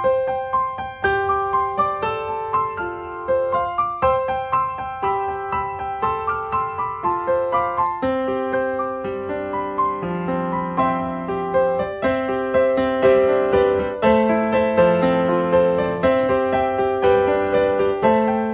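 Background piano music: a gentle melody of single struck notes, with lower accompanying notes joining about eight seconds in.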